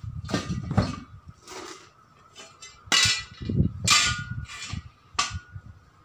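A series of sharp metal clanks and knocks from steel tyre-fitting tools and a truck wheel rim, about seven in all and unevenly spaced, the loudest two about three and four seconds in.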